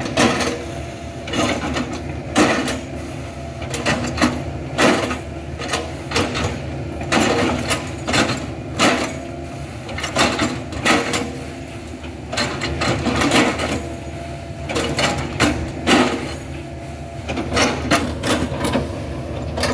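Hitachi excavator's engine running steadily while its bucket chops and crunches into a felled oil palm trunk, giving irregular sharp knocks about once a second.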